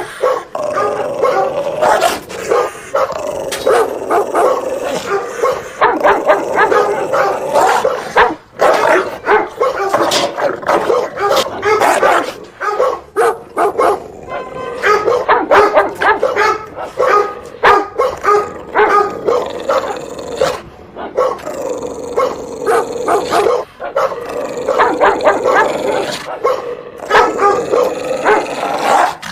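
Dog barking loudly and repeatedly in quick succession, with short yips mixed in.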